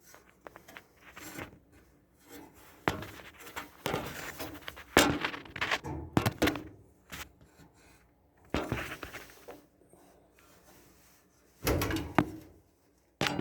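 Sheet-metal dryer panels and parts knocking, rattling and scraping as they are handled and pulled apart during disassembly, with irregular thunks, the loudest about five seconds in and again near the end.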